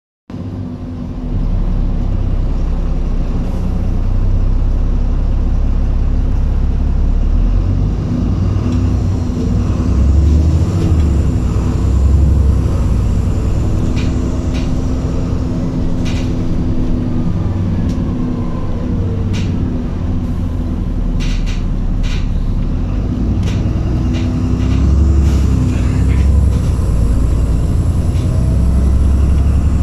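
Alexander Dennis Enviro400 double-decker bus on a Dennis Trident 2 chassis, heard from inside the passenger saloon while under way: a steady low engine rumble whose pitch rises and falls twice as the bus accelerates and eases off. A few sharp clicks and rattles come through the middle.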